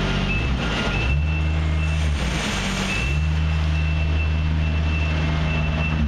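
A motorized machine running steadily with a low hum, under a continuous high-pitched warning beep. The hum changes about a second in and again near the three-second mark.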